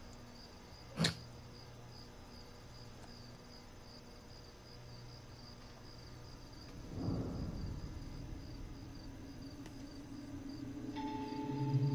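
Quiet cricket chirping, pulsing steadily and high-pitched, with one sharp click about a second in and a low swelling whoosh around seven seconds in. Low sustained music tones come in near the end.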